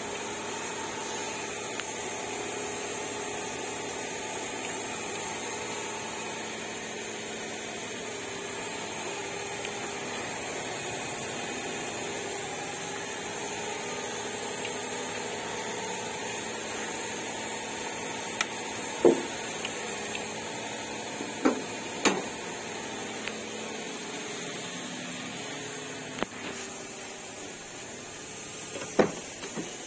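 Suzuki Every DA64V's 660 cc K6A turbo three-cylinder engine idling steadily after its first start in a month. Several sharp knocks and bumps come in the last third.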